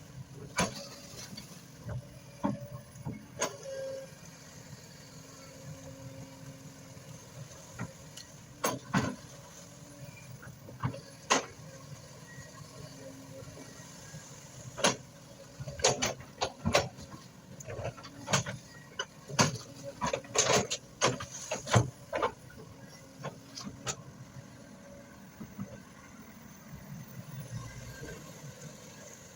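Excavator engine running steadily at a distance, with irregular sharp knocks and clanks that come thickest in a burst about halfway through.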